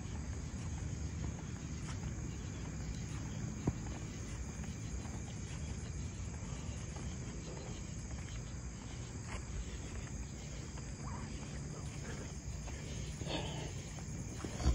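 Night insects trilling steadily, a high even drone, over the low rumble of a phone carried by someone walking along a road. There is a sharp click about four seconds in and another at the very end.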